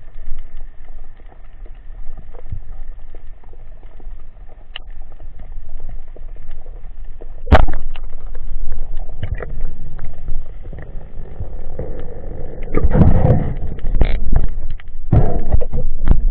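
Underwater, a band-powered speargun fires with one sharp snap about halfway through. Irregular knocks and rushing water follow, busier near the end, as the speared mullet struggles on the line.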